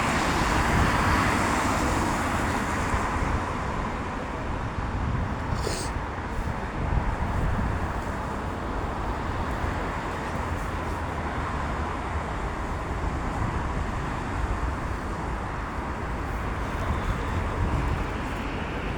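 Road traffic running steadily, with one vehicle going past loudest in the first few seconds and a short high hiss about six seconds in.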